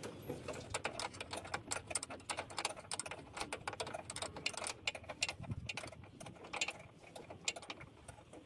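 Irregular light clicks and taps of hand tools on metal engine parts, several a second.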